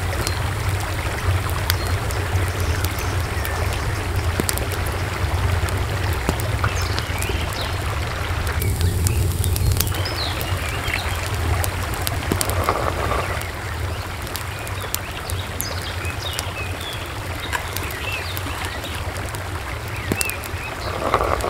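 Steady rush of running water from a small stream or waterfall, with birds chirping now and then. A brief pour of liquid about halfway through.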